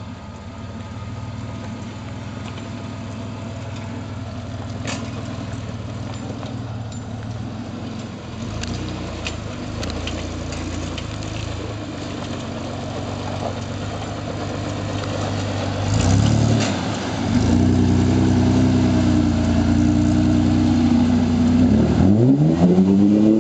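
Off-road buggy's 3.8 V6 engine running at low revs as it crawls over river gravel, then revving up from about two-thirds of the way in, with a quick rise and fall in revs near the end as it drives into the creek.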